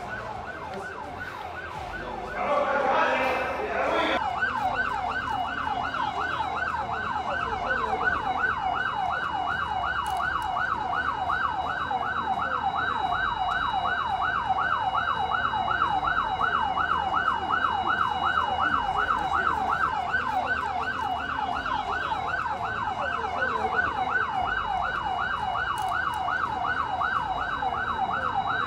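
Electronic siren in a fast yelp, its pitch sweeping up and down about three times a second, starting about four seconds in, with a steady high tone alongside.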